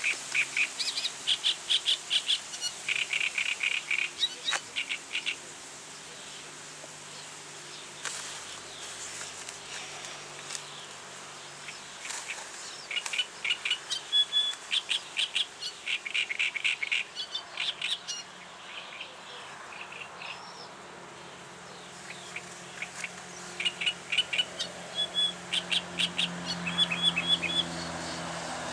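Reed warbler (Acrocephalus warbler) singing its advertising song: three bouts of several seconds each, made of fast, repeated chattering notes with short pauses between the bouts.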